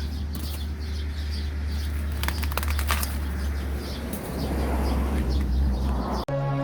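Outdoor background of birds calling, with rapid repeated high chirps in the first two seconds, over a steady low rumble and a few sharp clicks. About six seconds in, it cuts abruptly to electronic music.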